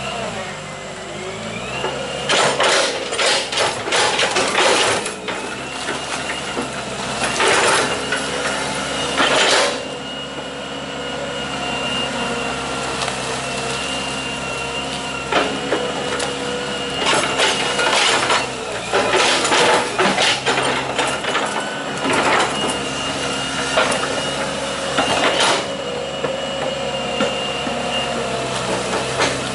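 Hitachi EX120 hydraulic excavator working: its diesel engine runs steadily under a high whine, broken by bursts of clatter and knocks as the bucket digs and shifts wet mud, about half a dozen times.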